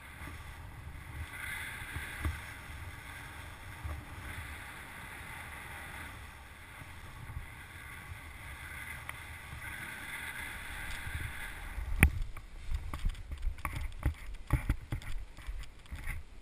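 Airflow rushing over the microphone of a paraglider pilot's helmet camera during the glide. About twelve seconds in comes a sharp knock, then a run of irregular thumps as the pilot touches down and runs out the landing on grass.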